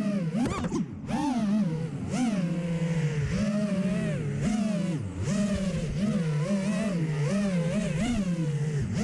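FPV quadcopter's brushless motors whining, the pitch rising and falling every second or so as the throttle changes, with a sharp dip and surge about half a second in.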